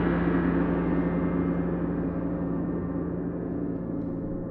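A gong ringing out after being struck, its long ring slowly dying away, the high overtones fading first.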